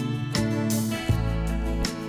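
Instrumental background music, with a new chord about every three-quarters of a second over a steady bass.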